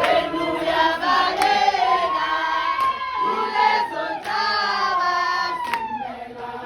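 A group of voices singing together, holding one long note through the middle, with a couple of sharp clicks.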